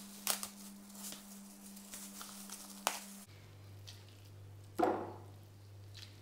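A plastic bag crinkling and rustling as it is pulled off a lump of partly frozen beef mince, with a few sharp clicks, over a low steady hum. Then softer sounds of hands squeezing the mince, with one louder short sound about five seconds in.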